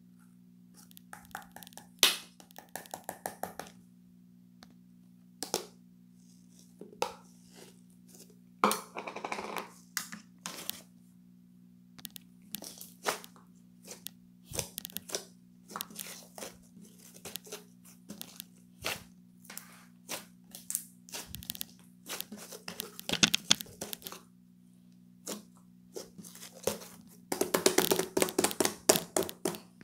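Handling noises: many sharp clicks and short rustling bursts at irregular intervals, with a dense run of rapid clicks near the end, over a steady low hum.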